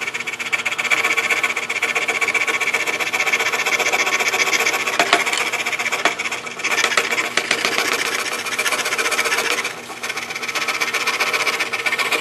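DeWalt scroll saw running and its fine blade cutting through thin wood, a steady rapid buzzing rasp. The level dips briefly twice, about six and a half seconds in and near ten seconds.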